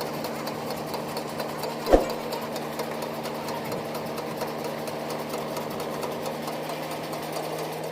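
Mahindra 475 tractor's diesel engine running steadily while driving a Redlands baler, with the baler mechanism making a rapid, even clatter. A single thump about two seconds in.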